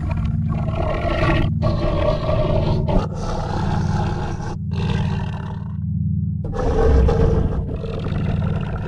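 Music track with loud, harsh roar-like sound-effect bursts laid over a steady low drone. The bursts stop abruptly several times, with short breaks about a second and a half in, near three seconds, and near six seconds.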